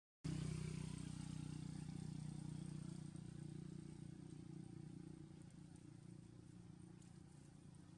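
A low, steady engine hum from a motor vehicle, fading gradually.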